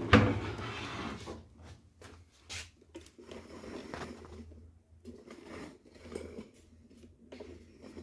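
Handling noise from a microwave oven being moved about on a bench: a sharp knock just after the start, then scattered light bumps and rubbing.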